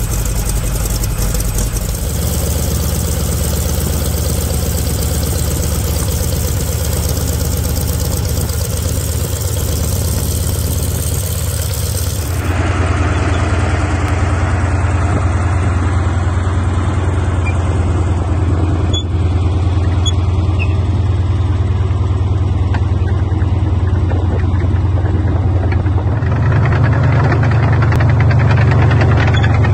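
A Sexton self-propelled gun's Continental R-975 nine-cylinder radial engine running with a steady low drone. Near the end the engine note steps up, a little higher and louder.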